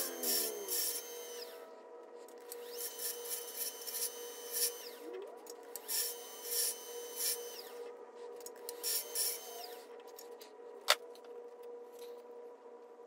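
Carbide turning tool cutting a spinning maple pawn on a wood lathe, in short scraping passes every two to three seconds over the lathe's steady hum. A single sharp click comes near the end.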